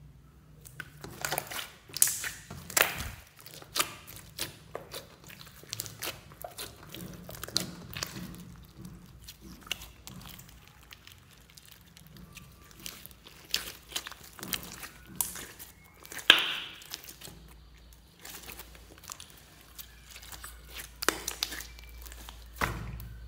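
Clear glitter slime with small beads mixed in, squeezed, pressed and stretched by hand: irregular sticky pops and crackles, the sharpest about two seconds in and again around sixteen seconds.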